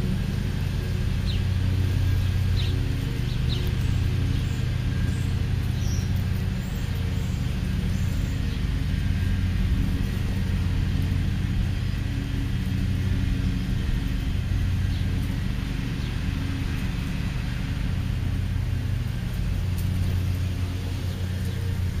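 Steady low rumble with a hum running throughout, with a few brief, faint high chirps from small birds in the first several seconds.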